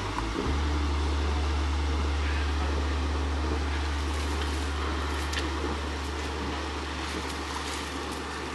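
Steady low drone of a boat's machinery running, with a few faint clicks in the middle and near the end.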